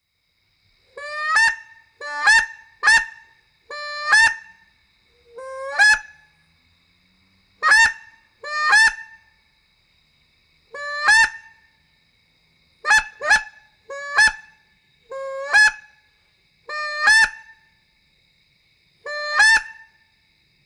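A hand-blown Canada goose call honking about fourteen times, singly and in quick pairs, each honk starting on a low note and breaking sharply up to a higher one, imitating Canada geese.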